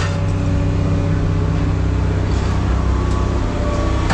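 Heavy machine's engine running steadily at a constant speed, with an even low hum.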